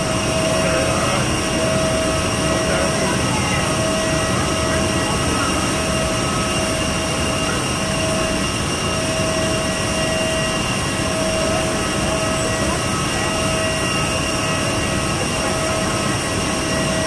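Steady whine and rumble of a parked jet airliner, several steady tones over a broad, even roar. One of the middle tones swells and fades every second or two.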